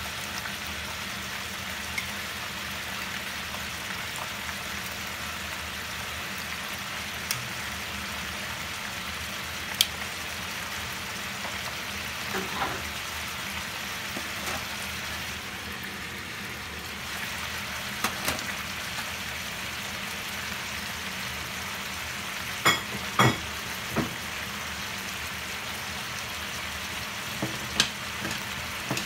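Raw pork belly cubes sizzling steadily in a hot pan as they begin to fry, with scattered sharp pops and crackles, a short cluster of louder ones about two-thirds of the way through.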